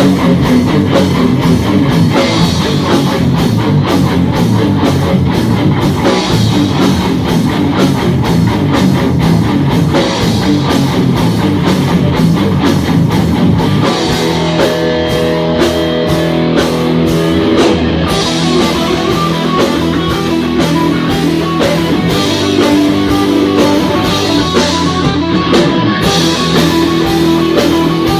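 Live heavy metal band with distorted electric guitars and a drum kit, playing a fast, dense riff. About halfway through it changes to slower, held guitar notes over the drums.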